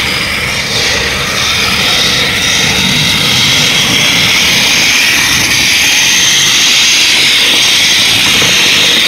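Small electric robot's drive motors and gearboxes whining steadily as its mecanum wheels roll across a hardwood gym floor. The whine grows a little louder about two seconds in.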